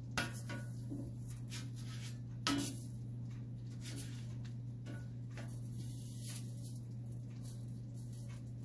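Light taps and clatters of corn tortillas being turned by hand on a comal, with two sharper knocks, one just after the start and one about two and a half seconds in, over a steady low hum.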